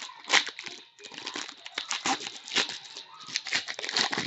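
Foil wrapper of a 2015-16 SP Game Used hockey card pack crinkling and crackling in an irregular run as it is torn open by hand, with a brief lull about a second in.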